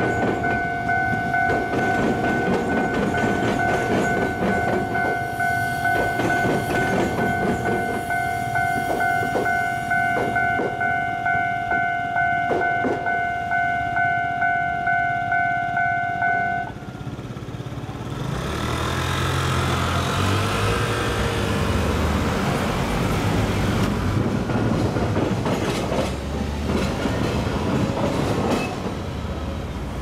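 A level-crossing bell rings steadily with a pulsing two-tone ding while an Iyotetsu Takahama Line electric train passes, its wheels clacking over the rail joints. The bell stops about halfway through, and road traffic then pulls away across the crossing with car and bus engines running.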